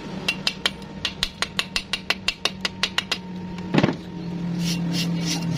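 Chipping hammer tapping slag off a fresh stick-weld bead on a steel hinge tube: a quick even run of sharp metallic taps, about six a second, then one louder knock and a few softer taps, over a steady low hum.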